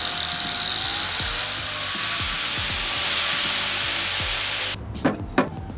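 RTC variable-speed angle grinder cutting tile: a loud, steady grinding hiss with a motor whine that rises slightly in pitch. It cuts off suddenly near the end, followed by a couple of light knocks, with background music underneath.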